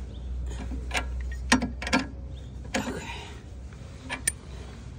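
Car scissor jack being cranked by its handle, giving a handful of irregular metal clicks and creaks as it works.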